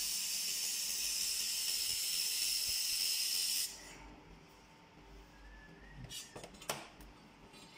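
Handheld fiber laser welder working a seam: a steady hiss of shielding gas from the welding nozzle, which cuts off suddenly a little under four seconds in. Later come a couple of light knocks as the welded sheet metal is handled.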